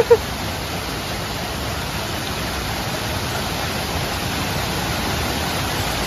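Small waterfall cascading over rocks close by: a steady, even rush of falling water.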